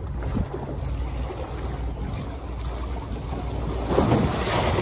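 Sea waves washing against concrete tetrapods, with wind buffeting the microphone in a low rumble; the wash swells louder about four seconds in.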